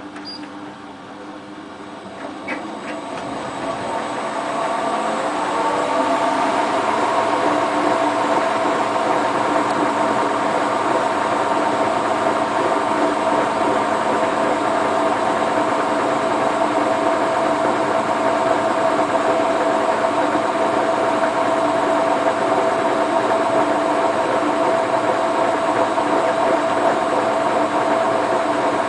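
Hotpoint Ultima WT960 washing machine spinning a load of heavy mats: the motor and drum wind up, their whine rising in pitch over the first several seconds, then run at a steady fast spin.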